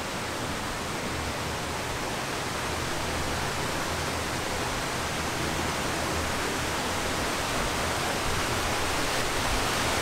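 Water rushing steadily where a river feeds into the head of an old canal, growing slowly louder.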